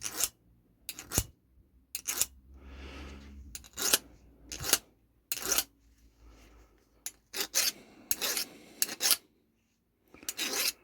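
Steel file from a chainsaw sharpening kit rasping along the cutting edge of a wood drill bit in short, separate strokes, roughly a second apart and sometimes in quick pairs, sharpening the blunt bit.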